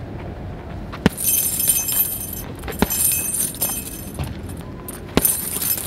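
Boxing-gloved left jabs thudding into a hanging heavy punch bag, a handful of hits with the strongest about a second in and near the end. The bag's hanging chain jingles after the harder hits.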